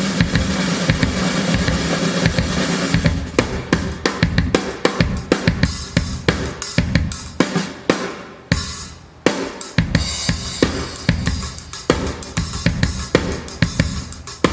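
Drum kit playing kick, snare, toms and cymbals in a hi-fi drum demo track. The first three seconds are a dense run of hits; after that come separate strikes, with a short fade a little past halfway before the drumming picks up again.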